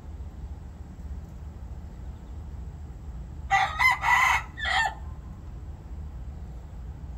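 A red junglefowl cock crows once about halfway through: a short crow of about a second and a half, broken into a few quick syllables, ending with a separate last note. It is a partly wild Lao yellow junglefowl type, described as 60% wild blood.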